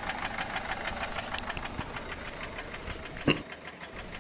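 Peugeot 407 1.6 HDi four-cylinder diesel engine idling with a rapid, even ticking knock. The mechanic puts it down most likely to a broken rocker arm or a broken hydraulic tappet.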